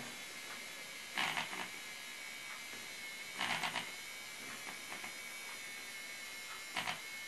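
Handheld battery milk frother running steadily with a high buzzing whine, its spinning wire whisk whipping heated milk into foam for a cappuccino. Three brief louder bursts of clatter break in, about a second in, around three and a half seconds, and near the end.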